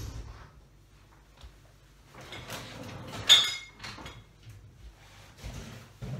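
Pull-out kitchen larder unit sliding shut on its runners, its stocked shelves rattling, with a sharp ringing clink of jars about three seconds in. Then a few lighter knocks as the tall cupboard door is closed and a chair is moved.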